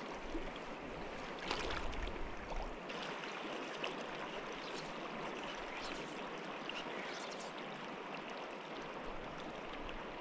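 Green River water running steadily: an even rushing of the current, with no voice or music.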